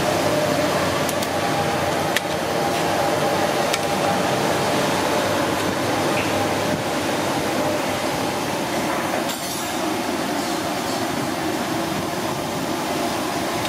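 Kitchen scissors snipping through a cooked giant isopod's shell, a few faint clicks in the first few seconds, under a loud, steady rushing noise that eases slightly about nine seconds in.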